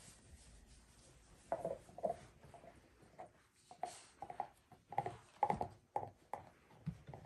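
A Rottweiler chewing on a bone: irregular gnawing bites, about two a second, starting about a second and a half in.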